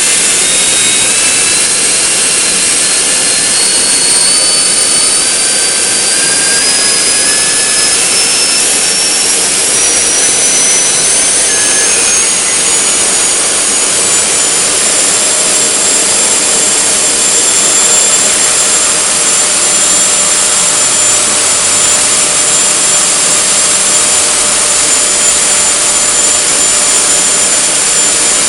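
Freewing 70mm electric ducted fan running up: a loud whine that rises steadily in pitch over about fifteen seconds as the throttle is advanced, then holds steady at full throttle, where it draws about 75 amps.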